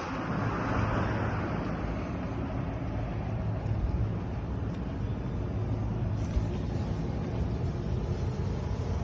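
Mitsubishi Fuso Canter's 4P10 four-cylinder turbo diesel idling steadily, a low even hum.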